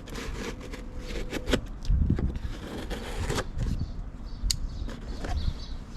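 A cardboard shipping box being opened and its packaging handled: a run of scrapes, crackles and clicks, with a few dull knocks about two seconds in.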